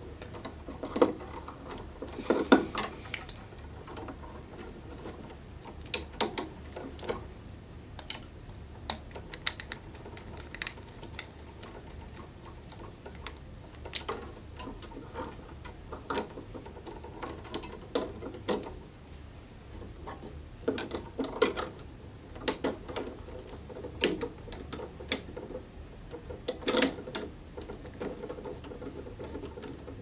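Hand-work noise of wiring a duplex receptacle into a metal electrical box: irregular clicks, taps and rustles of stiff copper wire and the plastic receptacle, with a few louder clusters, over a low steady hum.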